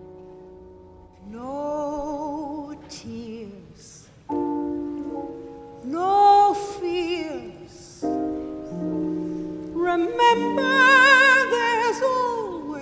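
A woman's voice singing a slow ballad with wide vibrato in three long phrases, over sustained piano chords that fill the gaps between them.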